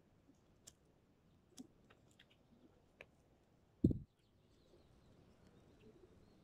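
Faint scattered clicks, then a single low thump about four seconds in.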